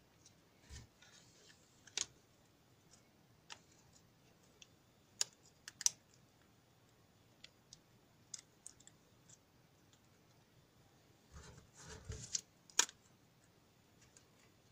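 Small electronics being handled: light clicks and rustles from a small circuit board and alligator-clip test leads being fiddled with by hand. Isolated sharp clicks come every second or two, with a denser run of rustling and clicks near the end.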